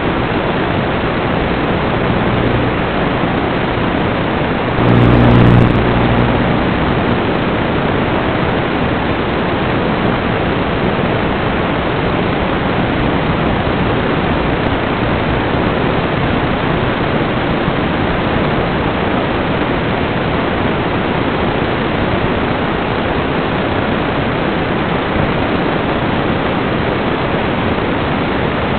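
Steady static hiss from an analog FPV video receiver's audio channel, with a brief low buzz about five seconds in, the loudest moment.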